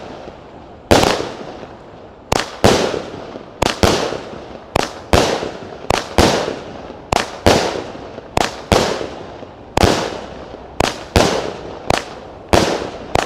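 A 36-shot, 20 mm "Super Bomb" firework cake firing: a steady run of sharp bangs, about one or two a second, each trailing off in an echo.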